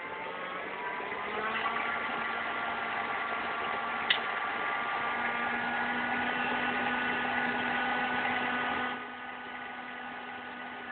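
Homemade juice-can jet engine running with a steady whine over a rushing noise. The pitch climbs about a second and a half in, a sharp click comes about four seconds in, and the sound drops to a quieter run near the end.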